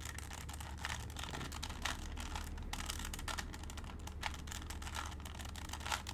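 A standard (non-speed) plastic Rubik's cube being turned by hand, its layers clicking and clacking in a quick, irregular run. The cube is stiff and hard to turn. A steady low hum runs underneath.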